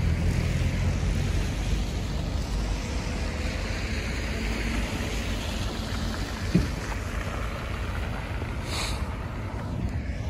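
Wind rushing over the microphone and a steady low rumble of road traffic, with one short knock about six and a half seconds in.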